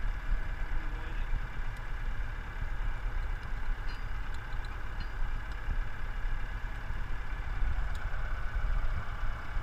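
Nuffield tractor engine idling steadily, with a few faint metal clinks from the rear linkage being hitched up.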